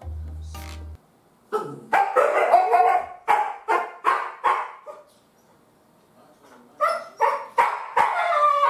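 Siberian husky barking and yowling in a string of short calls, pausing for a couple of seconds in the middle, then calling again near the end.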